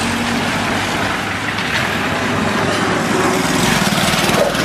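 Engine and road noise of a moving vehicle, steady and loud, with a small motorcycle engine passing close by and the sound growing louder near the end.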